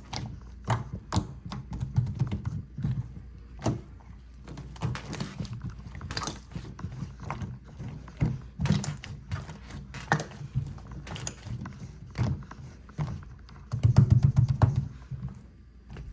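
Croissant slime being pressed and squeezed by hand, giving a run of irregular sticky clicks and pops over soft thuds, with the heaviest squashing near the end.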